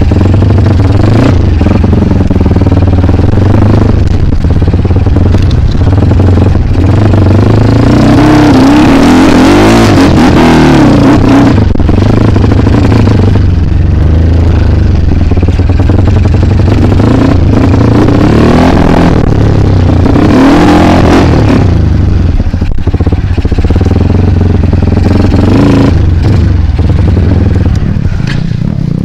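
Trail motorcycle engine running hard and revving up and down repeatedly, with rattling clatter over rough ground. The revs climb highest about a third of the way in and again about two-thirds through.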